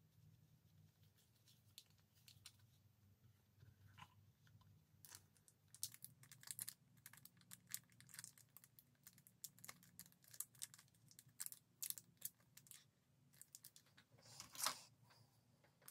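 Thin clear plastic wrap around a fountain pen crinkling and crackling under the fingers as they pick at it, trying to tear it open by hand. The crackles are sparse at first and get busier from about five seconds in, with the loudest crinkle near the end.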